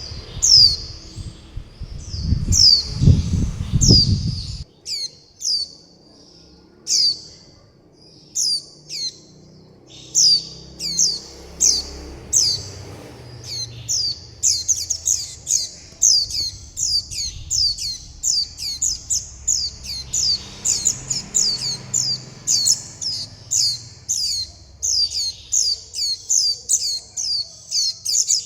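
Young white-eyes giving begging and contact calls: short, high cheeps that fall in pitch, sparse at first and then coming quickly, several a second, from about halfway through. A low rumble sits under the first few seconds.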